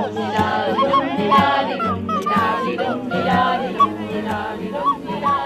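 A group of voices singing a song together in phrases, over steady held notes from an accompaniment.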